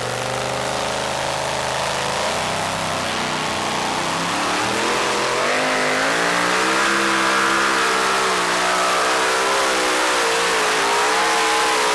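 Supercharged engine of a super modified two-wheel-drive pulling truck at full throttle, dragging the sled down the track. Its pitch holds at first, climbs from about four seconds in, then wavers up and down.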